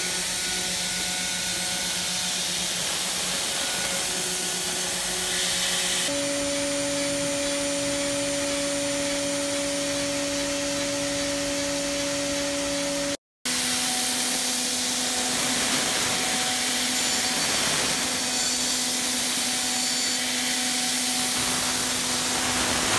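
CNC vertical machining center milling hardened mold steel with an end mill: the spindle runs with a steady tone over an airy hiss from the oil-mist cutting fluid. The tone steps higher about six seconds in. It breaks off briefly a little past halfway, then carries on at a new steady pitch as finishing gives way to rest machining.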